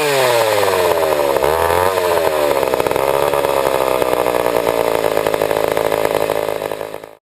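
Old Pioneer two-stroke chainsaw engine dropping from full revs as the throttle is released, blipped up once briefly, then running lower and rough, as the saw struggles to idle with its carburettor not tuned right. The sound cuts off suddenly near the end.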